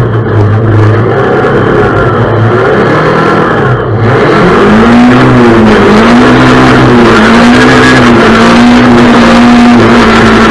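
Rallycross car's engine heard from on board, very loud, under hard acceleration. About four seconds in it briefly drops away. It then comes back louder over a strong hiss, its note rising and dipping three times before holding steady.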